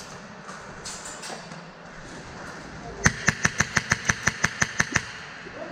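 Airsoft gun firing a quick string of about a dozen shots, roughly six a second, for about two seconds.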